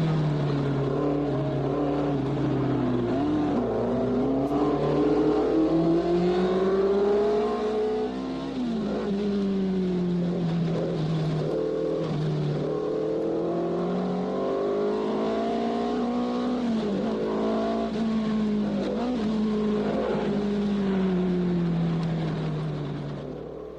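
Formula 1 race car engine running hard, its pitch climbing slowly and dropping back again and again as the car accelerates and lifts off; it fades out at the end.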